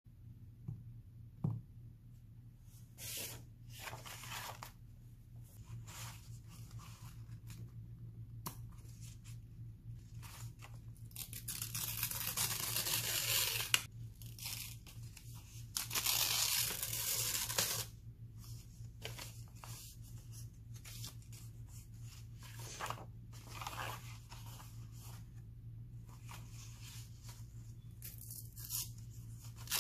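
Sheet of black paper being torn by hand, with two long rips about halfway through and shorter rustles and tears of paper between, over a faint steady hum.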